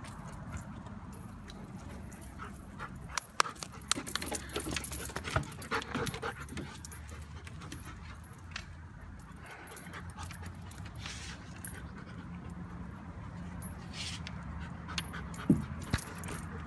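German shepherd puppy panting and whimpering as it moves about, with rustling and clicking noises clustered between about three and seven seconds in, and a short whimper near the end.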